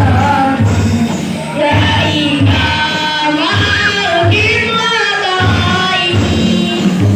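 Hadroh ensemble playing sholawat: singing voices over a steady beat of hand-struck frame drums.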